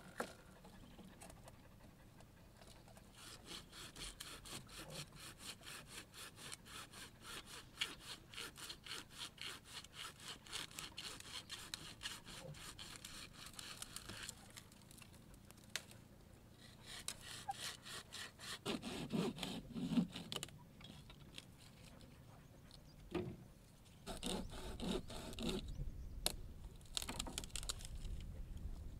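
A hand-held blade sawing back and forth through a tree branch. It starts as an even run of quick strokes lasting about ten seconds, then comes in shorter bouts with a few louder knocks of wood midway.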